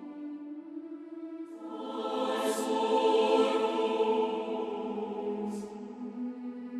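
A choir singing slow, sustained chords, growing fuller about a second and a half in.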